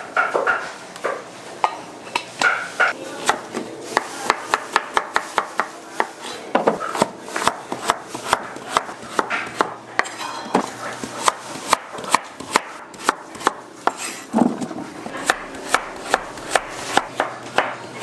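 A knife chopping on a cutting board in quick, even strokes, about three to four a second, with a short pause about three quarters of the way through.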